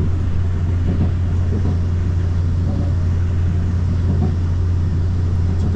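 Steady low rumble and hum of a moving vehicle, even throughout with no changes in pitch or level.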